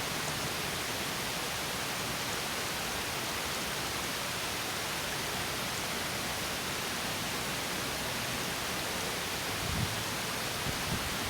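Water of a small stream spilling over a mini waterfall, a steady even rush and splash. A few brief low bumps come near the end.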